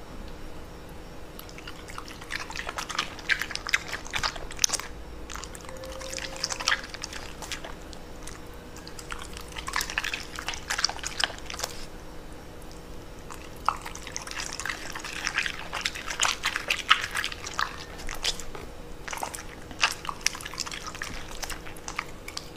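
Corgi crunching raw bok choy, in several bursts of crisp, wet crunches a few seconds apart.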